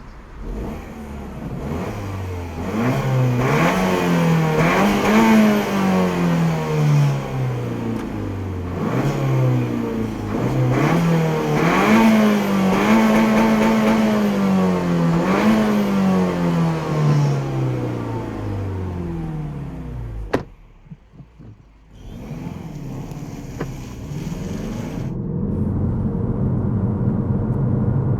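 Peugeot 308 GTi's turbocharged 1.6-litre four-cylinder being revved again and again, its note rising and falling smoothly each time. A little past two-thirds of the way through there is a sharp click and a brief lull. Then a steady engine drone builds up again.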